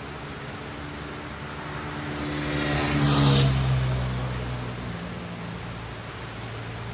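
A motor vehicle passes by on the road: its engine grows louder, is loudest a little over three seconds in, then fades away, its pitch dropping slightly as it goes past.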